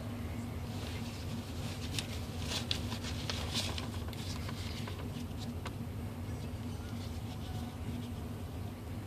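Steady low hum inside a pickup truck's cab, with a scatter of light, irregular clicks and rustles through the first half.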